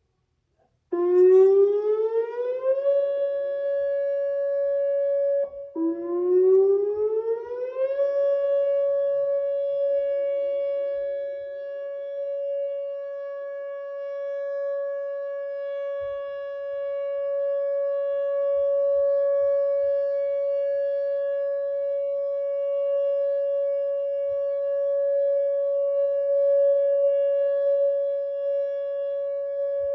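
Whelen WPS 2909 electronic outdoor warning siren during a test, winding up twice. It starts about a second in and rises to a steady tone. It drops out briefly, rises again, then holds one steady wail whose loudness slowly swells and dips.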